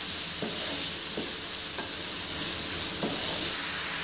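Chopped onions sizzling in hot oil in a non-stick pan while a wooden spatula stirs them, with a few scraping strokes against the pan.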